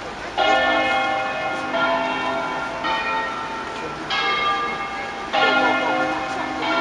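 Church tower bells rung in the Veronese system as a solemn concerto. A new bell strikes about every second and a quarter at changing pitches, and each keeps ringing under the next.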